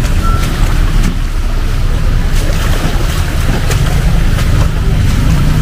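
Heavy rain pouring down, a dense steady hiss with a deep rumble underneath.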